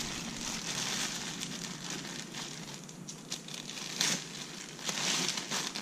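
Thin clear plastic bag crinkling and crackling as it is pulled open by hand, in irregular bursts with a sharper crackle about four seconds in.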